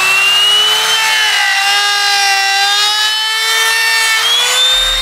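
Handheld electric router cutting the edge of a wooden speaker ring. It gives a high, steady motor whine with cutting noise, and the pitch wavers a little as the bit takes load. A bass-heavy music beat comes in at the very end.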